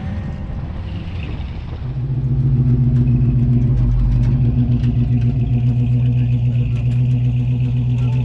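Old Chevrolet pickup truck engine running steadily at low speed as the truck rolls slowly. Its loud low hum comes in about two seconds in, with a slight regular pulse.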